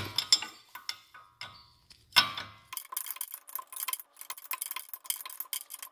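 Combination wrench working the lower ball joint nut loose: scattered metal clicks, a sharper click about two seconds in, then a rapid run of light metallic ticking as the wrench is worked back and forth on the nut.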